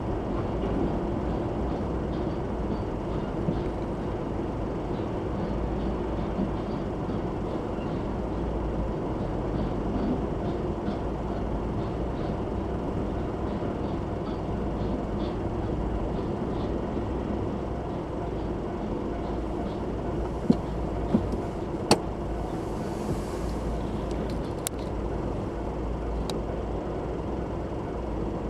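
Container freight train rolling past at a level crossing: a steady rumble of wheels on rail with faint regular clicks, and a few sharp knocks about three quarters through.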